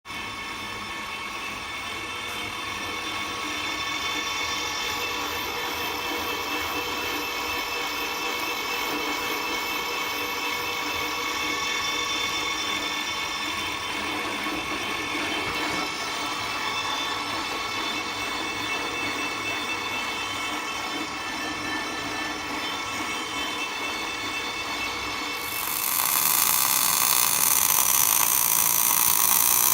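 Power tool motor running steadily with a whine of several fixed pitches. About 26 s in, a harsher, hissing noise joins it and the sound gets louder.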